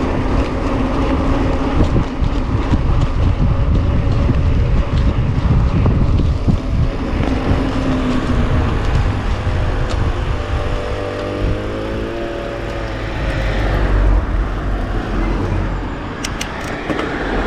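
Steady low rumble of wind buffeting a camera microphone on a moving mountain bike, with a short wavering hum partway through and a few light clicks near the end.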